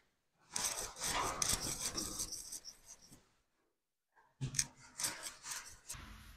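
Broom bristles scrubbing and scraping against the steel at the top corner of a shipping container, clearing off the mud that barn swallows have started building into a nest: two spells of quick scratchy strokes with a short pause between them.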